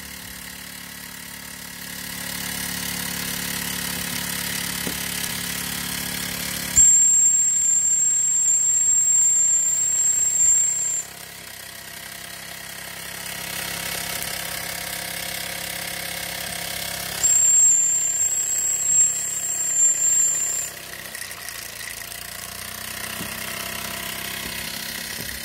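Mamod SR1 toy live-steam roller's single oscillating-cylinder engine running steadily without moving, with a continuous hiss of steam. Twice, for about four seconds each, a loud high shrill whistle of escaping steam starts suddenly over it and then stops.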